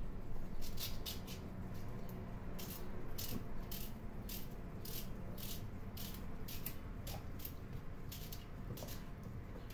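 Small knife slicing through cucumbers held in the hand, each cut a crisp click, about two a second and fairly regular.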